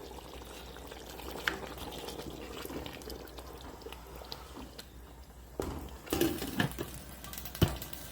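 Pot of stew simmering with a steady low bubbling, and a few sharp clanks of a utensil against the pot in the second half as chicken wings are added.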